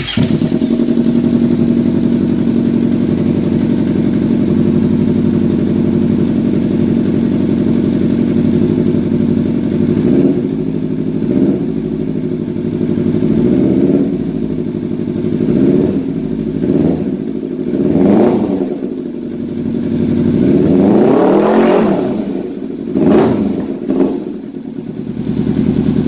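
Kawasaki Z300 parallel-twin motorcycle engine breathing through an SC Project slip-on exhaust with its dB killer removed. It catches and settles into a steady idle, then after about ten seconds is revved in a string of throttle blips, with one longer rev about three-quarters of the way in before dropping back to idle.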